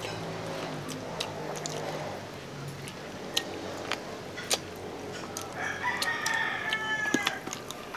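A rooster crows once in the background, a long call starting a little over five seconds in and lasting about a second and a half. Scattered sharp clicks and smacks of people chewing on grilled pork ribs are heard throughout.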